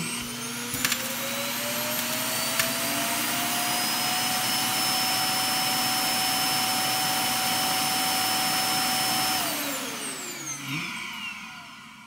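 iRobot Clean Base auto-empty station sucking the dirt out of a docked Roomba i7+ whose bin is full. Its suction motor whines up over the first few seconds, runs loud and steady, then winds down and fades out about ten seconds in, with a click about a second in.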